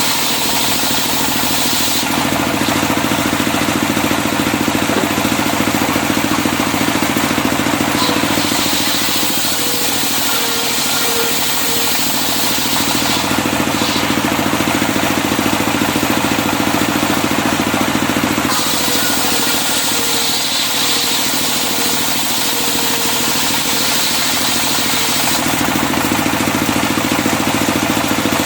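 Engine-driven circular sawmill (serkel) running steadily while sawing medang timber into beams. Its sound changes every several seconds: about 2, 8, 13, 18 and 25 seconds in.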